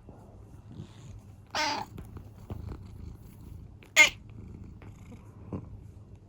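Domestic cat giving two short calls, the second one sharper, louder and very brief. These are its distinctive cries demanding breakfast.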